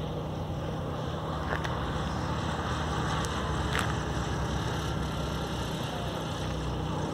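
Steady engine drone: a constant low hum under a broad rushing noise, with no change in pitch.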